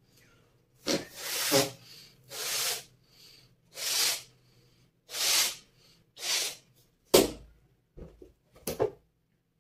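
A rubber balloon being blown up by mouth: about six long puffs of breath, roughly one a second. A sharp click about seven seconds in is the loudest sound, followed by a few brief rubbing and handling noises of the balloon.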